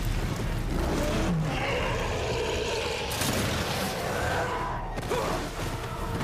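Action-film sound mix of effects and score: a dense, steady wash with a low rumble underneath.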